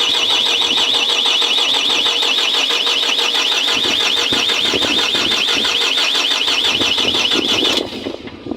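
Loud electronic warning alarm warbling steadily in a fast repeating pattern, cutting off abruptly about eight seconds in.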